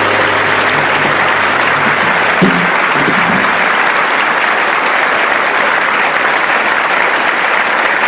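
Audience applauding as a jazz quartet finishes a tune. The band's last held chord dies away under the clapping in the first couple of seconds, then steady applause continues.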